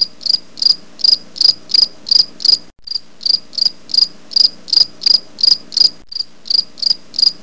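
Cricket chirping sound effect: a high, even chirp about three times a second, looped with brief breaks about three and six seconds in.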